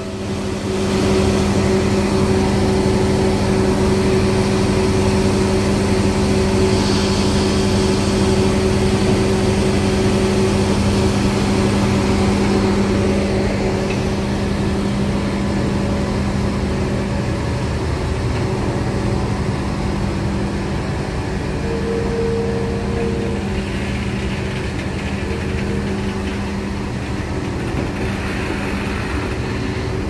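Diesel locomotive engine idling steadily, a constant low hum with a rumble underneath.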